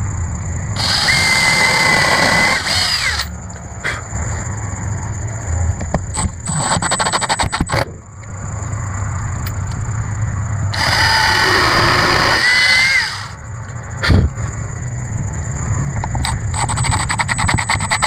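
Power drill driving screws into wood: two runs of about two and a half seconds each, the motor whining steadily and bending in pitch as each run stops. Between the runs come short trains of rapid clicking.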